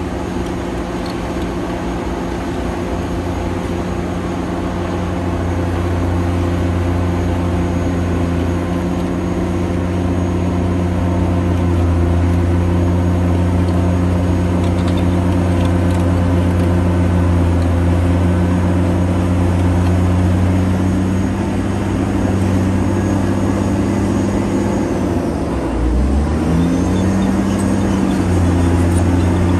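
Caterpillar D9T bulldozer's C18 six-cylinder diesel engine running steadily. Near the end the revs drop briefly and then come back up.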